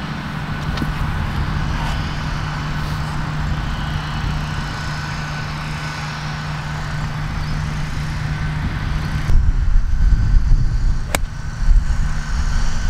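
Steady low hum and rumble outdoors, the rumble growing heavier near the end, then a single sharp click of a golf wedge striking the ball about eleven seconds in.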